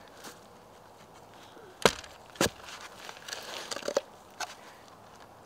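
Clamshell post hole digger striking into the soil: two sharp strikes about half a second apart, followed by a few fainter knocks and scrapes.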